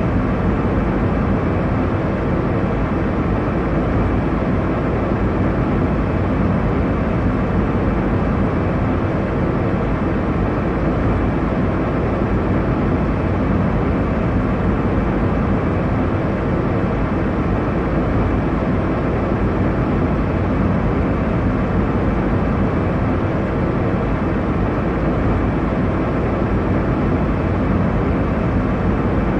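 Steady airliner cabin noise: a constant low rumble and rush of engine and airflow noise heard inside the passenger cabin, with no change in level.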